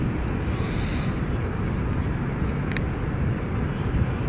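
Wind rumbling on the microphone outdoors, a steady low buffeting, with a short hiss about a second in and a faint click near three seconds.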